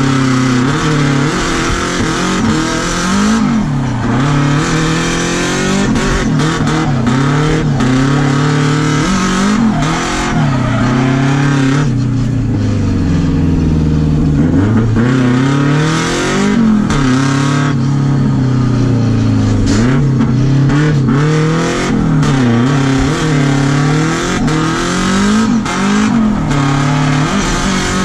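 Drift car's engine heard from inside the cabin, revving up and down over and over as the throttle is worked through the slides, with tyres squealing. The revs sag lowest about halfway through, then climb again.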